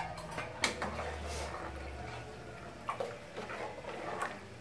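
Metal ladle stirring in an aluminium pressure cooker, with a few sharp clinks of metal on metal over soft scraping.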